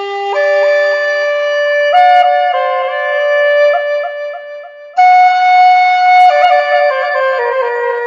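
Homemade Native American flute playing a slow melody of held notes, each broken by quick grace-note flourishes between pitches. A new phrase starts with a strong, sudden attack about five seconds in.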